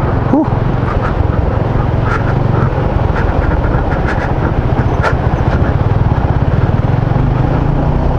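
Motorcycle engine running while riding a rough dirt road, with scattered short clicks and rattles.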